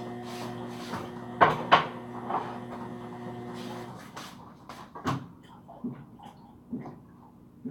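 Washing machine running with a steady motor hum that cuts off about four seconds in. Two sharp knocks a little after one second in are the loudest sounds, followed by scattered small clicks and taps.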